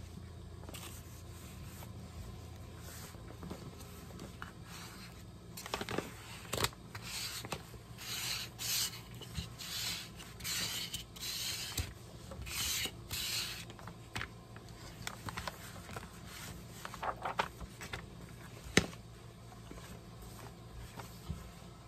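Hands rubbing and smoothing a sheet of paper flat against a board, a run of short rubbing strokes about one or two a second through the middle, with a single sharp click near the end.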